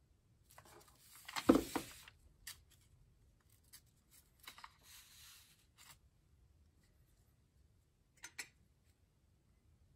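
Sheets of paper rustling and sliding as a comic book is uncovered and its old newsprint cover bent back, with a single thump about a second and a half in and a short crackle of paper near the end.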